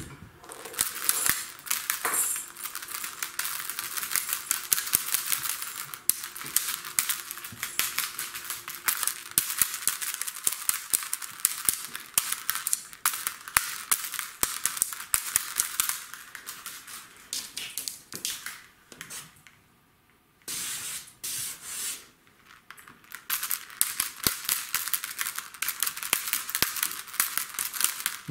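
Rapid, irregular clicking and crinkling rustle, mostly high-pitched, with a brief pause about two-thirds of the way through.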